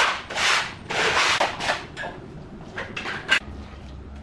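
A run of short rustling, scraping strokes, then a few light clicks and knocks about three seconds in: hand work cleaning and handling materials around a concrete counter.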